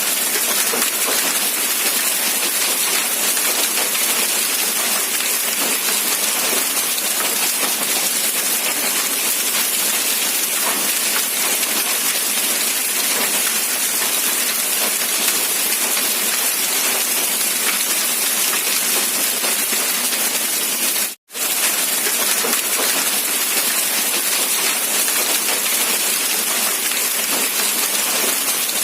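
Steady rain, an even hiss of falling drops with little low rumble. It cuts out for a split second about two-thirds of the way through, then resumes unchanged.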